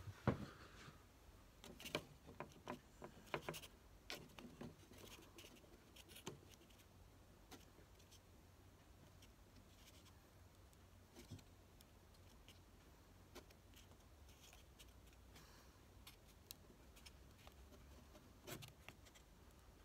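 Faint, scattered clicks and light taps of wooden clothespins and small wood strips being handled and clipped onto a scale-model wall. They come thickest in the first several seconds, with the loudest click just after the start, and then only a few now and then over near silence.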